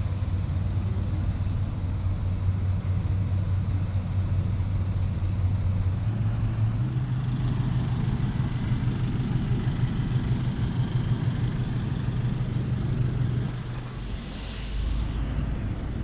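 An engine running steadily with street noise around it. Its low hum steps up slightly in pitch about six seconds in and drops away near the end. Three faint short high chirps come through over it.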